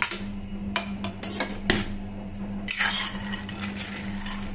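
A spatula stirring raw peanuts that are being dry-roasted in a metal kadai: clinks and knocks of the spatula on the pan and the nuts rattling and scraping, over a steady low hum.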